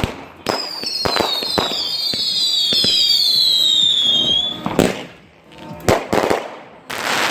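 Fireworks going off: sharp bangs, and a cluster of whistling shells whose several shrill whistles slide slowly downward together for about four seconds. A loud bang comes near the five-second mark, then two more bangs and a rushing hiss near the end.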